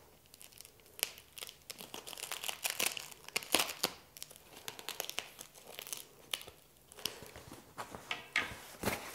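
Packing paper being torn and crumpled as it is pulled off a folded camp bed: a busy run of crinkles, rustles and small clicks, with a quieter spell in the middle.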